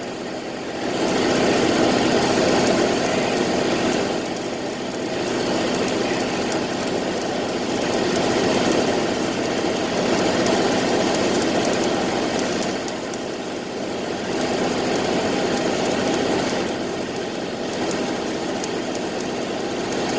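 Arc welding: a continuous crackling, sizzling arc over a steady machine hum, easing briefly a few times.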